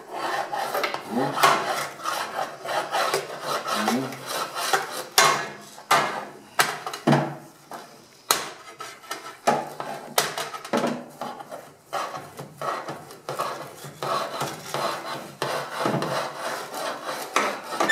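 A metal hook scraping soot out of the channel beneath the oven of an Ecofogão wood-burning stove, in irregular rasping strokes with a few sharp knocks.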